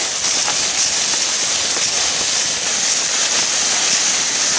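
Thick dry fallen leaves rustling and crunching in a steady rushing hiss as a whitetail buck's carcass is dragged over them and boots tramp through them.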